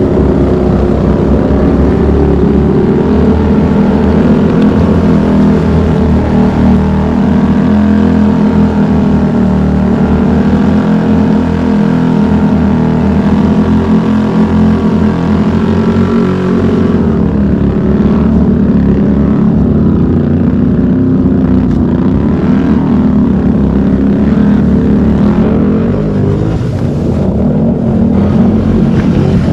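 ATV engine running close by, its pitch rising and falling with the throttle as the quad works along a muddy trail.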